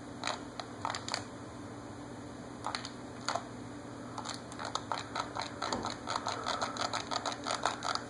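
Buttons on a handheld ceiling fan remote clicking: a few scattered presses at first, then rapid repeated presses over the last few seconds, pushed again and again because the fans are not taking the command. A steady low hum runs underneath.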